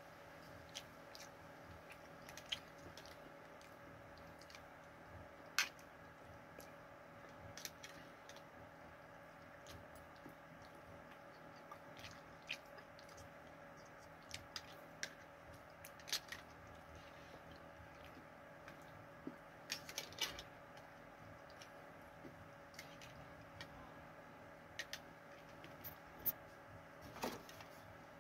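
A person quietly chewing smoked mussels eaten from the tin, with scattered sharp clicks over a steady faint hum.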